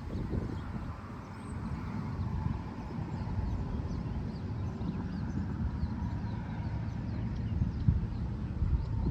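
Walking-through-a-park ambience: a low rumble of wind on the microphone and footsteps, with many faint, short high bird chirps.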